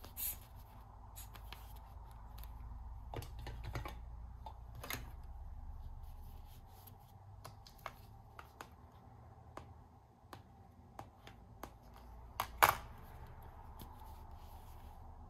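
Hands handling hook-and-loop plastic toy fruit, a pear and grapes, being cut with a plastic knife. Scattered light clicks and taps of plastic on plastic, with one louder rasping rip about twelve and a half seconds in as a piece is pulled apart.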